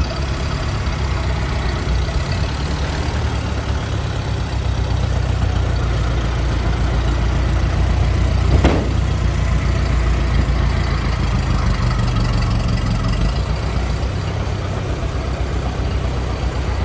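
A motor vehicle's engine running steadily with a low rumble. A single sharp click comes about eight and a half seconds in.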